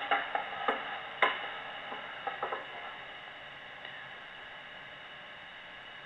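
A few light clicks and knocks in the first couple of seconds, then a steady low hiss.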